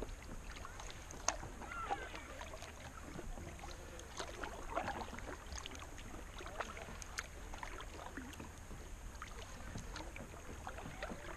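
Kayak paddle strokes in calm river water: the blades dipping and pulling with light splashes, drips and small irregular clicks.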